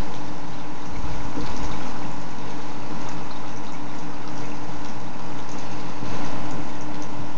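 Saltwater reef tank water draining through a siphon tube into a bucket during a water change: a steady rush of running water, with a steady hum underneath.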